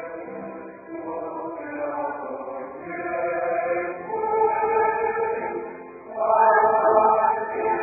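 A choir sings a slow Spanish hymn in long held notes, swelling louder about six seconds in.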